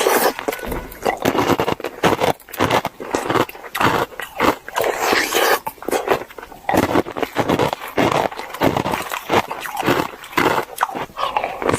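Ice cream being eaten close to the microphone: wet mouth sounds and smacking with many quick irregular clicks and short noisy bursts.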